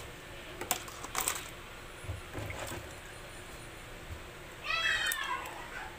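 A few light clicks and knocks as live crabs are handled, then a cat meows once near the end, the loudest sound here.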